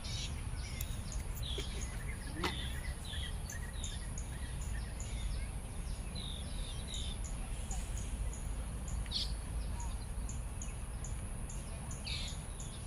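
Small birds chirping, many short calls scattered throughout, over a steady low rumble.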